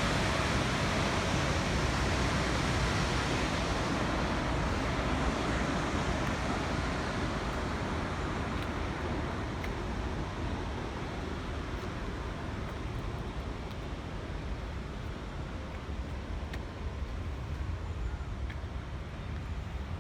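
Steady rushing roar of water pouring from a dam, fading slowly as the higher part of the sound drops away.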